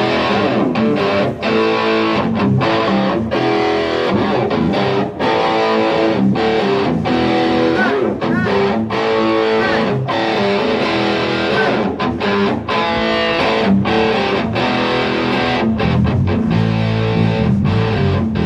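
Band jamming: distorted electric guitar playing over a steady beat of sharp hits.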